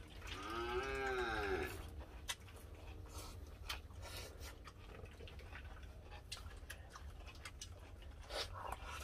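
An animal's single drawn-out call, rising and then falling in pitch, about a second and a half long, followed by faint scattered clicks.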